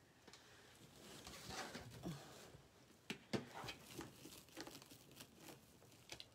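Faint rustling and crinkling of stiff mesh wreath petals being handled and pressed into place, in a few scattered short bursts.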